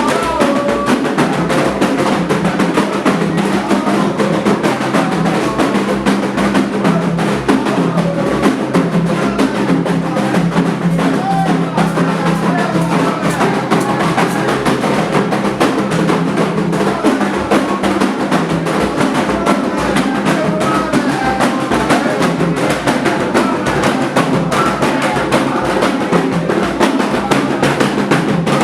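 Candomblé ritual drumming on atabaque hand drums: a fast, continuous rhythm of dense strokes that runs without a break.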